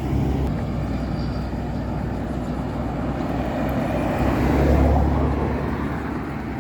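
Road traffic going by: a steady low rumble of passing vehicles, one of them growing louder and passing close about five seconds in.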